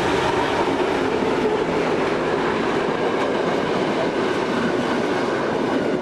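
Soviet-built V200 'Taigatrommel' diesel locomotive and its coaches passing close by: the steady drone of its two-stroke V12 engine together with the rumble and clatter of the coach wheels over the rail joints.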